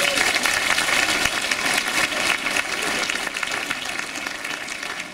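Audience applauding: dense clapping that slowly dies away toward the end.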